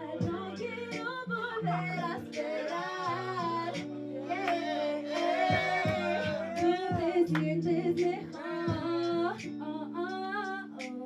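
A woman singing a slow, wavering melody over a backing track of long held low chords. This is a live song performance.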